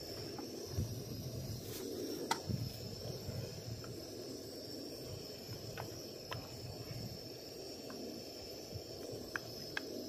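Steady low rush of a portable gas stove burning under a pot of braised chicken, potatoes and peppers that has just been topped up with water and is coming back to a simmer, with a few small ticks and pops. A thin, steady high whine runs over it.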